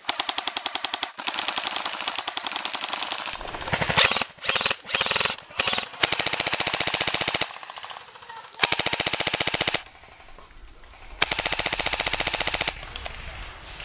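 Airsoft rifles firing on full auto: a fast rattling string of shots in a run of bursts, several lasting one to two seconds, with a few short ones around the middle and brief pauses between them.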